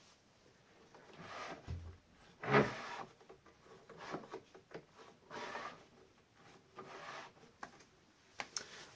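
A homemade table saw's rip fence being slid and worked by hand: a few short scraping rubs, with one louder knock a little over two seconds in.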